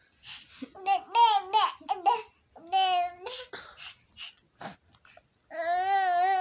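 Baby fussing and complaining in short high-pitched whiny vocal sounds, ending in a longer drawn-out whine: she wants to be picked up.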